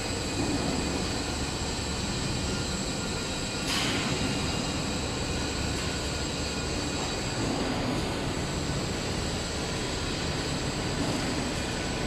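Shelf roll forming machine running steadily: continuous mechanical noise with a few constant high tones, and a brief sharp noise just under four seconds in.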